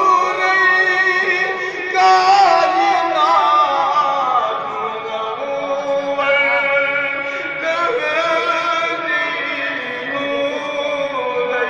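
Music: a man singing a melodic chant, the voice sliding and ornamenting its pitch without pause.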